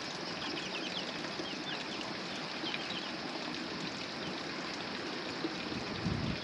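Steady rushing of running water, with small birds chirping over it in the first half and a soft low thump near the end.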